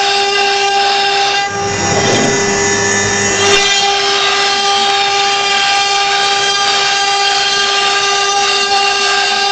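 CNC wood-carving router spindle whining steadily at high speed as its bit cuts into a wooden board. The cutting noise grows coarser and lower for about two seconds, starting about a second and a half in.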